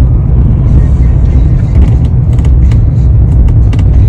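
Strong gusting wind buffeting the microphone: a loud, steady low rumble with scattered short clicks.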